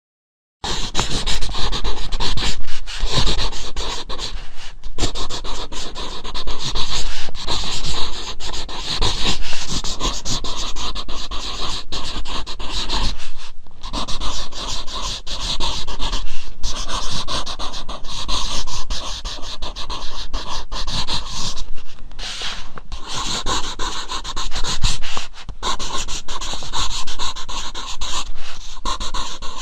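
Pencil writing on paper, close up: a continuous run of quick scratching strokes of the lead on the paper, with a couple of brief pauses between phrases.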